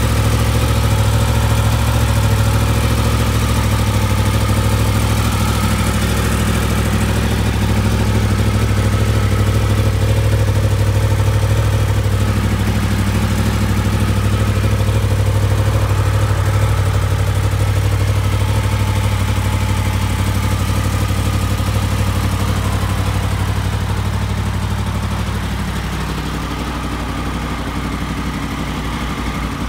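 Yamaha MT-10 SP's crossplane inline-four engine idling steadily through its Yoshimura Alpha exhaust, a little quieter near the end.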